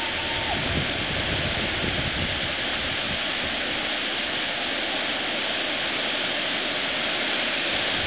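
River water pouring over a low weir: a steady, unbroken rushing.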